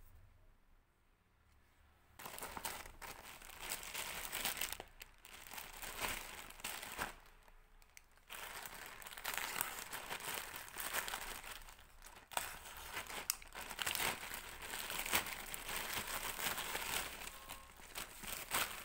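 Packaging being unwrapped by hand, crinkling and rustling with sharp crackles and a little tearing. It starts about two seconds in, with a brief lull around eight seconds.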